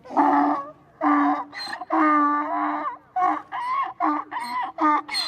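Donkey braying: a few long drawn-out calls, then a quicker see-saw of short hee-haw calls.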